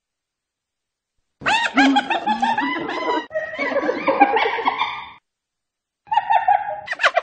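Spotted hyena giggling ('laughing'): rapid series of high calls, each a quick rise and fall in pitch, starting about a second and a half in and running for several seconds. After a pause of about a second, a shorter second bout begins near the end.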